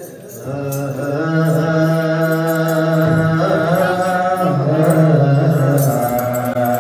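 Ethiopian Orthodox church cantors (debteras) chanting a slow, drawn-out hymn together in unison, their voices holding long notes that shift slowly in pitch.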